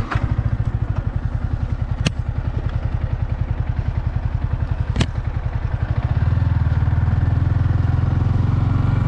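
Motorcycle engine starting up and running with an even low beat, then louder and steadier from about six seconds in. Two sharp clicks about two and five seconds in.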